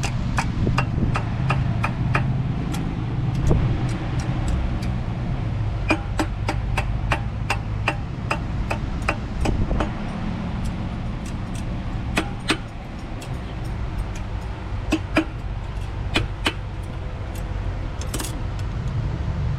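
A blacksmith's hand hammer striking iron on an anvil in irregular blows, about two to three a second, some with a brief metallic ring, over a steady low rumble.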